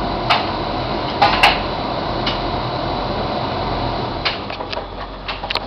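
Bosch Logixx 8 washing machine in its main wash, the drum tumbling the laundry with a steady wash noise and irregular sharp clicks and knocks. The noise eases off a little for the last second or so.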